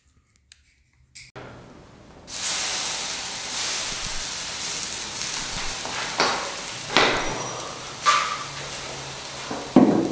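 Hot, burnt plastic light bulbs sizzling and hissing as they are doused. The hiss starts about two seconds in and slowly fades, with four sharp cracks or pops over it; the last, near the end, is the loudest.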